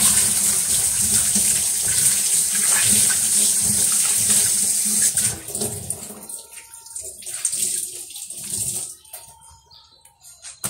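Kitchen tap running into a stainless steel sink while a cloth rag is rinsed and squeezed under the stream. The running water stops about five or six seconds in, leaving scattered drips and small handling noises.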